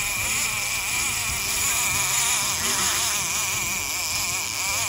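A level-wind sturgeon reel's clicker buzzing steadily as a hooked white sturgeon runs and strips line off the spool, over a steady hiss of river and wind.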